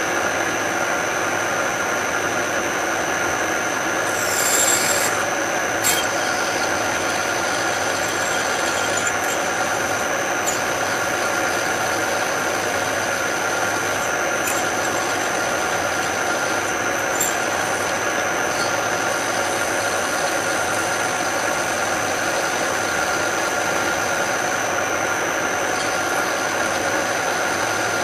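Machine tool running steadily with a twist drill cutting slowly into stainless steel at low speed and heavy feed, with a steady whine and a grinding rub. A brief hiss about four seconds in and a sharp click shortly after.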